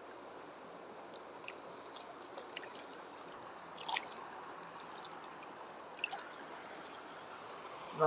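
Shallow river running steadily, with a few small splashes and drips as a trout is handled in the water over a landing net; the largest splash comes about four seconds in.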